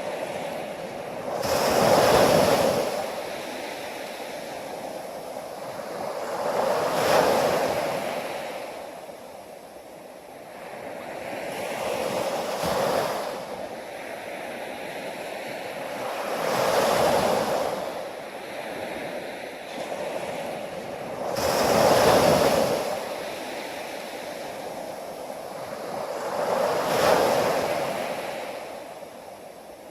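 Ocean waves breaking and washing in, six surges about five seconds apart with a steady hiss of surf between them.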